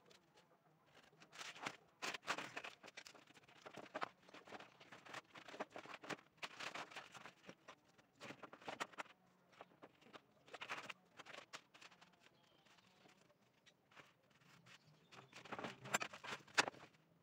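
Sandpaper being unrolled from a roll and handled on a wooden bench: irregular rustling, scraping and light tapping, with a quieter stretch about twelve seconds in.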